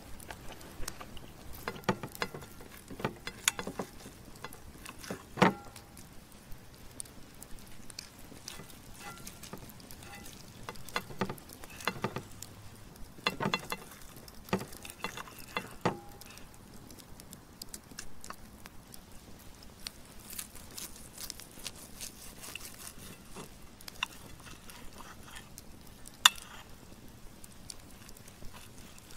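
Serrated steak knife and fork cutting a cooked steak on a ceramic plate: irregular taps, scrapes and clinks of metal on the plate, a few ringing briefly, with the loudest clinks about five seconds in and again near the end.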